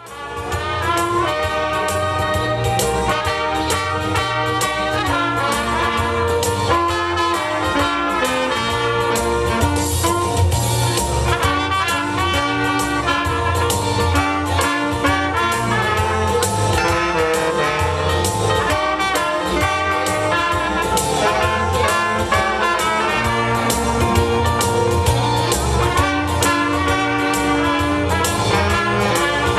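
Brass band playing upbeat music, trumpet, trombone and saxophone over a steady bass beat, fading in at the start.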